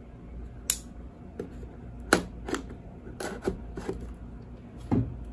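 Fingers picking and tapping at the taped seal on top of a cardboard laptop box: a string of irregular sharp clicks and scrapes.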